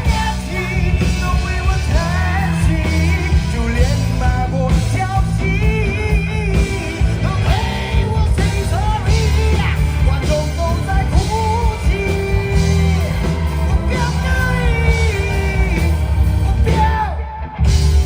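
Live rock band playing with a male singer belting high, wavering notes over a steady beat. The music breaks off briefly near the end, then the band crashes back in.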